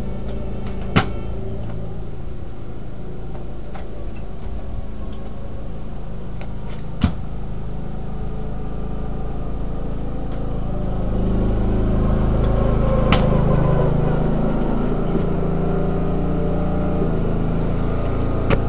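Riding lawn mower engine running steadily, getting louder from about halfway through as the mower comes closer. Three sharp clicks stand out over it.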